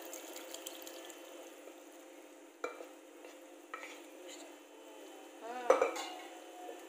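Pressure-cooked chickpeas and their cooking water poured into a pan of simmering masala gravy over a steady sizzle. A few light knocks follow, then a spoon clacks and scrapes against the pan about six seconds in as stirring starts; this is the loudest sound.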